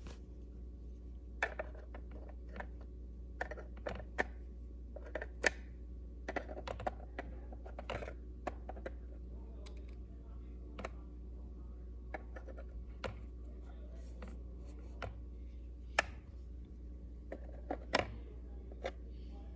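Scattered clicks, taps and scrapes of plastic vacuum-cleaner parts being handled as dust and debris is cleared from the opened Dyson DC24 brush-bar housing.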